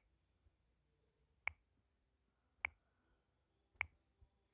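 Four sharp, short clicks about a second and a quarter apart over near silence.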